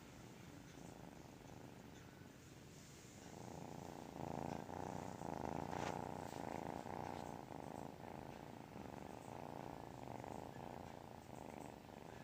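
A small kitten snoring in its sleep: a steady, low purr-like breathing sound that grows louder about three seconds in. There is one faint click near the middle.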